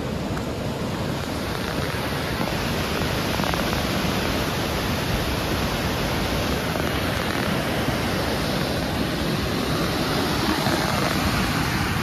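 Fast-flowing river water rushing in a steady, unbroken noise.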